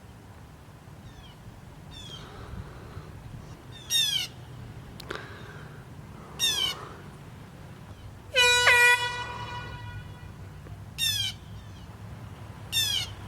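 Handheld compressed-air horn sounded in a series of short blasts that fall in pitch, with one held for about a second, the loudest, about eight and a half seconds in.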